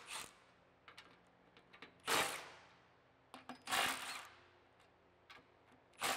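Cordless impact wrench with a 15 mm deep socket spinning in short bursts, three times, loosening the nuts on the exhaust band clamps, with light clicks of the socket against the metal in between.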